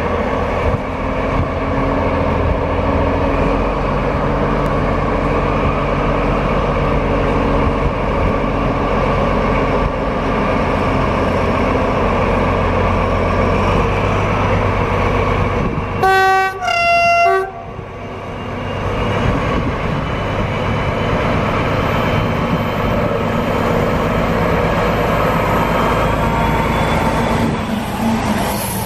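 Class 218 diesel-hydraulic locomotive running steadily under load as it hauls a dead ICE 1 train set. About 16 seconds in it sounds its horn in two short blasts, the second a little lower in pitch.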